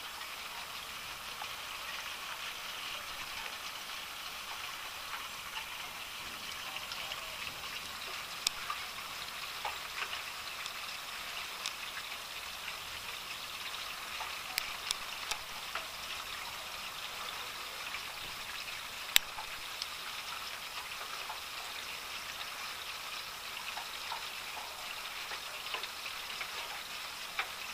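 Steady rain from a thunderstorm, with scattered sharp ticks of drops striking a hard surface and one much louder tick about two-thirds of the way through.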